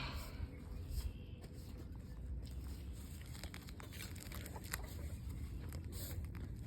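Weeds being pulled up from between deck boards: scattered small snaps and crackles over a steady low rumble.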